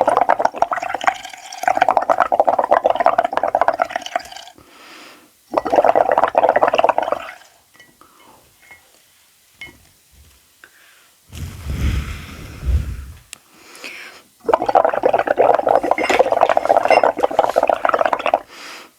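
Sand poured or trickled in three long pours of densely pattering grains, with a short low rumble between the second and third.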